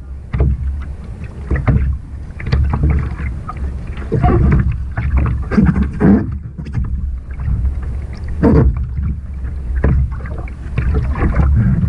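Double-bladed kayak paddle dipping and splashing in the sea, a surge of splashing with each stroke every second or so, over a steady low wind rumble on the bow-mounted camera's microphone.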